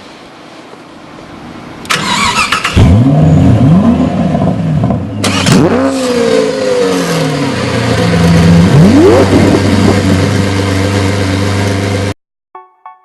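Honda Civic Type R's 2.0-litre turbocharged four-cylinder engine starting about two seconds in, then blipped several times, each rev rising and falling in pitch over a steady idle. It cuts off suddenly near the end.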